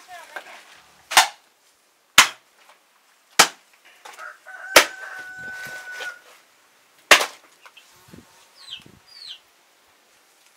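Five loud, sharp knocks, unevenly spaced about one to two seconds apart. Between the fourth and fifth, a rooster crows once for about a second and a half, and small high chirps follow near the end.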